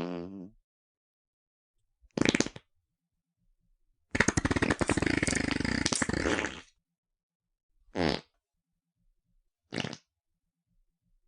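A series of separate farts with silence between them: a short one about two seconds in, a long fluttering one lasting about two and a half seconds, then two more short ones near the end.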